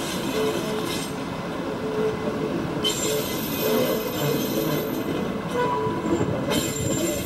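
Gulflander diesel railmotor and its trailer car running past on the rails: engine running and steel wheels rolling along the track in a steady rumble.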